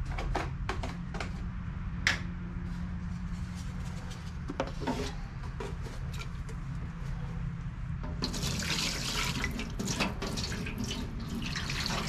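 Water poured from a plastic jug into a stainless steel steam-table pan, splashing steadily from about eight seconds in. Before the pour there are scattered knocks and clicks of handling, over a steady low hum.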